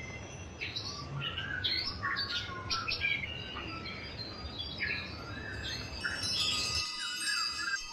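Several songbirds chirping and trilling over a steady low background noise. About six seconds in, wind chimes start ringing with long held tones, and shortly after the low background cuts off suddenly while the birds keep calling.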